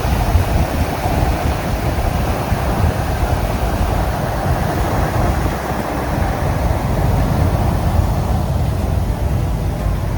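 Semi truck cruising at highway speed, heard from inside the cab: a steady, loud, deep rumble of engine and road noise.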